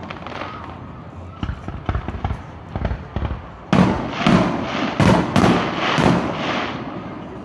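Aerial firework shells bursting: a few scattered pops early, then a louder run of bangs with echoing tails after about three and a half seconds.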